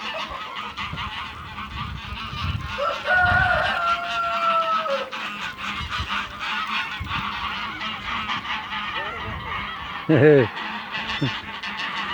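Domestic geese honking and cackling in a continuous clamour of overlapping calls, with a longer drawn-out call about three seconds in and a loud honk near the ten-second mark. The noise is that of geese fighting.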